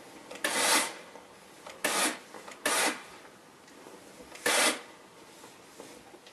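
Household iron pressing a jacket's front edge on cloth: four short hissing swishes as the iron is pushed across the fabric, the last a little over four seconds in.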